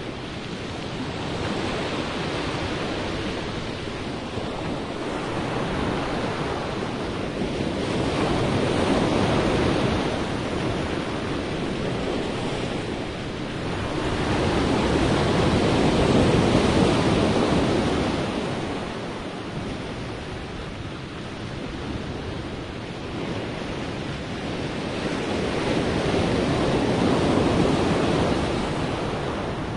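Sea waves breaking and washing on the shore in slow swells, each surge rising and falling away over several seconds, with some wind noise.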